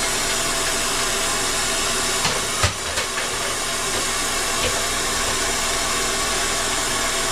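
Brazing torch flame hissing steadily as it heats a brazed copper refrigerant joint on an ice machine compressor to unsweat it. Two short knocks sound about two and a half seconds in.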